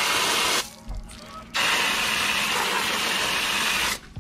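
Garden hose pistol-grip spray nozzle shooting a hard jet of water onto a wheel brush and wet concrete, rinsing the brush. The spray cuts off for about a second just after the start, then runs again until it stops near the end.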